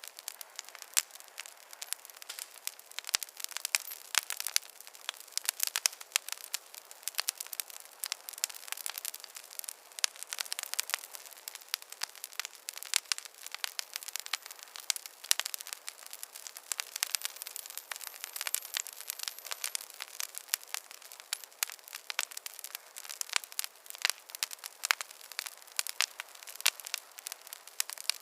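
Fireplace fire crackling: a steady stream of irregular sharp pops and snaps over a faint hiss, with no low rumble.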